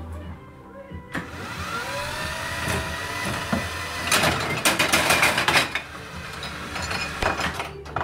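Homemade beer fridge's electric motor and chain lift running, its whine rising in pitch, with metal and glass bottles rattling loudest from about four to six seconds in.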